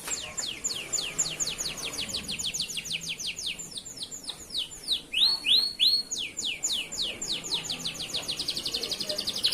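Male canary singing a song of repeated high, downward-sweeping whistled notes, about five a second. Midway there are a few rising notes, and near the end the notes speed up into a rapid trill.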